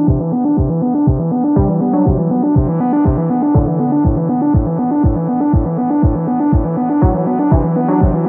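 Background music: an electronic track with a steady low beat about twice a second under sustained synth-like chords.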